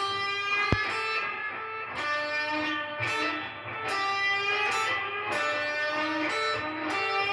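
Electric guitar playing a bluesy rock lick in the fifth-fret pentatonic shape: bent notes alternating with a repeated top note, each note ringing about a second. A single sharp click sounds near the start.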